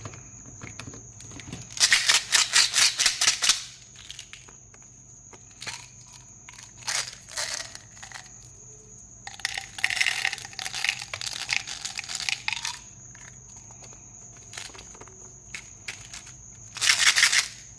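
Plastic candy wrappers crinkling and tearing in three bursts of rapid crackling: about two seconds in, a longer one in the middle, and a short one near the end, with scattered small crinkles between.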